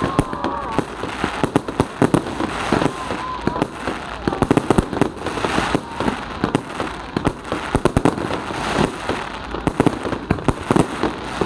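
Fireworks display: a continuous rapid series of pops and bangs from aerial shells bursting and rising comets, with no pause.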